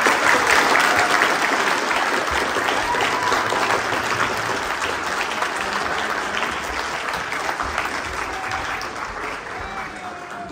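Applause: a group of people clapping their hands, loudest at first and slowly dying down toward the end.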